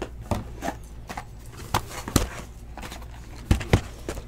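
Sealed cardboard trading-card boxes being lifted out of a case and set on a table: a string of short knocks and taps, the loudest two close together near the end.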